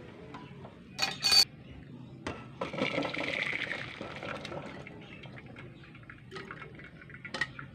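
Two sharp metal clinks as a steel cooking pot is handled, then hot water and boiled yardlong beans poured from it into a wire-mesh strainer: a splashing pour lasting about two seconds, followed by a few light clinks.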